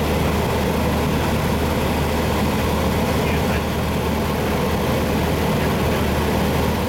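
Steady engine and propeller drone with wind noise inside the cabin of a small high-wing single-engine plane on approach to the runway.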